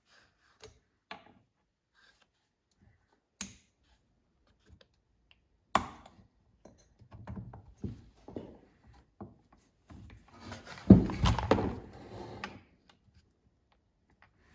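Scattered light clicks and taps as the piston and wrist pin are handled at a chainsaw's crankcase. About eleven seconds in comes a run of louder knocks and thuds as the Stihl 026 chainsaw is turned over on a wooden workbench.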